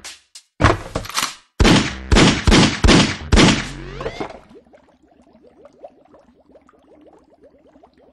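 Cartoon gunfire sound effects: about six loud shots in quick succession over three seconds, then faint, quick ticking.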